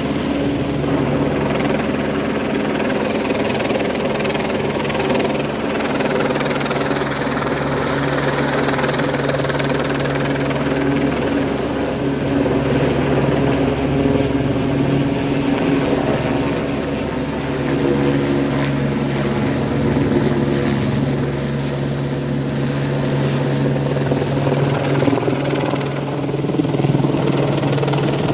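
Helicopter running loud and steady, its rotor and engine drone holding an even pitch.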